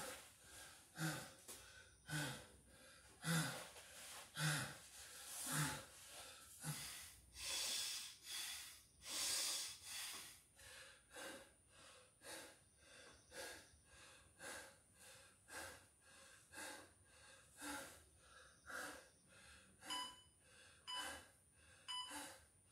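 A man breathing hard and gasping while he recovers after a set of six-count burpees, about one heavy breath a second. The breaths grow quieter and shorter as he gets his wind back.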